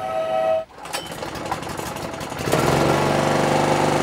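A small portable petrol generator: after a second or so of irregular clicks and rattles, its engine starts about two and a half seconds in and runs at a steady speed. A brief steady tone at the very start cuts off suddenly.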